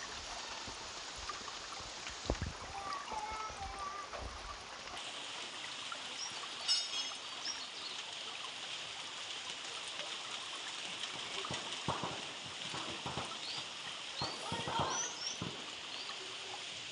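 Steady rain falling on forest leaves, an even hiss that shifts in tone about five seconds in. A few short high chirps sound over it in the second half.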